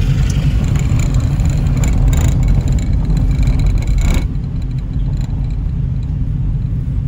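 A car driving, with a steady low rumble of engine and tyres. A brighter rushing hiss rides over it for the first four seconds, then drops away suddenly.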